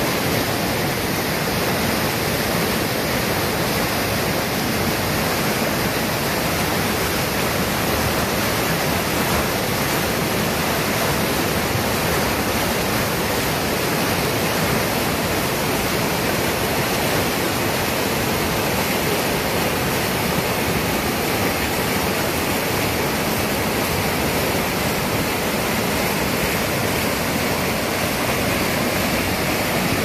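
Whitewater rapids of a mountain river rushing over and between boulders: a loud, steady wash of water noise.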